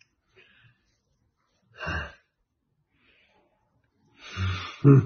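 A man's breath: one short, breathy exhale about two seconds in, then near the end he starts to laugh in quick pulses.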